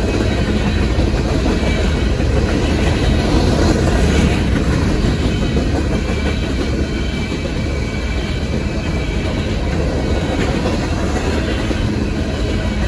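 A train of empty freight gondola cars rolling past close by: steel wheels running steadily over the rails.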